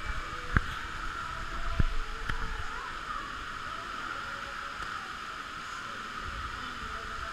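Indoor waterpark hall ambience: a steady rush of falling and splashing water echoing through the hall, with a few sharp knocks in the first two seconds or so.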